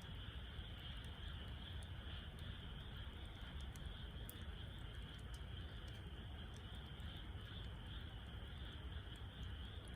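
Wood fire burning in a Snow Peak fire pit, with scattered small crackles, over a steady high-pitched insect chorus and a low rumble.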